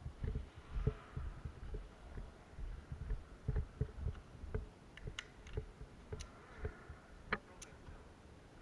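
Footsteps picked up by a player-worn camera: soft low thuds about twice a second. A few sharp clicks come from about five seconds in.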